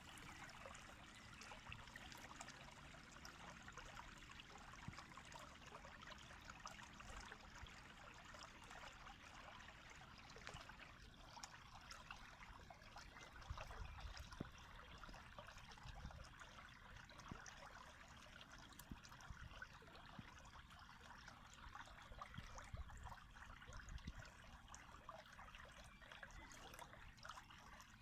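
Running water trickling steadily and faintly, a continuous fine splashing and gurgling, with a few soft low bumps now and then.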